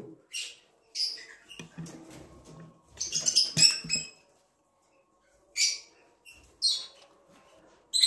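Lovebirds chirping: short, high-pitched calls every second or so, most closely bunched about three to four seconds in.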